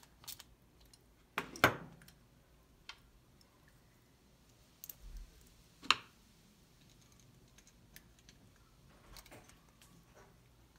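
Hand tools and a small-engine carburetor being handled on a wooden workbench: scattered metal clicks and clinks. The loudest comes about a second and a half in, another near six seconds, and a few lighter ones near the end.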